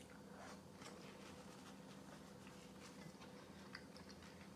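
Near silence with faint small clicks and ticks scattered through it: quiet eating sounds as a spoonful of cold beetroot soup goes into the mouth and the spoon scoops again in the bowl.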